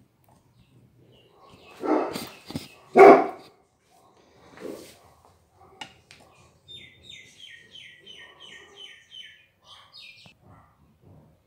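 A dog barks twice, about a second apart, with a softer sound after. Later a bird chirps about ten times in quick, even succession.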